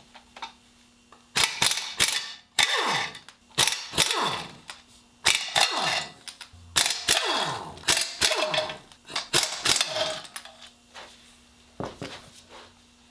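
Power impact wrench hammering on the flywheel bolts of a Ford 351M V8 in a run of short bursts. Each burst winds down in pitch as the trigger is let go.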